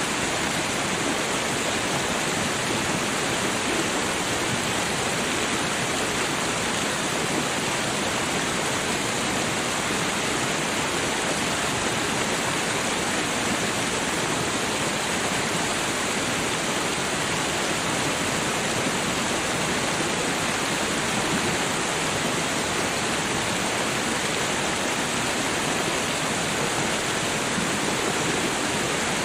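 A steady, even rushing hiss that holds unchanged throughout, with no separate pops or crackles standing out.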